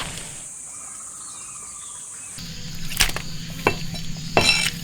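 Steady high-pitched insect trilling, with a few sharp clicks and a brief clatter in the second half.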